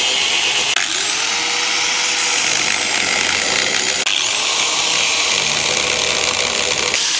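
Angle grinder cutting at the steel base and bolts of a yacht's davit, with a loud, steady grinding noise. About a second in, and again about four seconds in, the motor's pitch climbs and then holds as it speeds back up.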